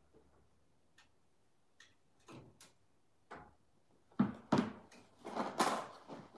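Hard plastic toy dinosaurs being handled by a toddler: a few faint clicks, then a run of louder knocking and clattering starting about four seconds in.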